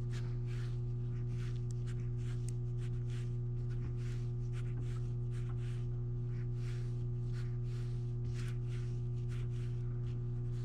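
Soft, repeated swishing of hands rolling a clay coil back and forth on a damp work table, about two strokes a second, over a louder steady low electrical hum.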